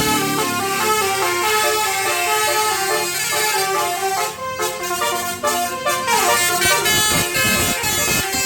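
Indonesian bus 'telolet' musical horn (a Basuri multi-tone horn) playing a quick tune of stepped notes. Around six seconds in, the pitch slides down and the sound becomes choppier.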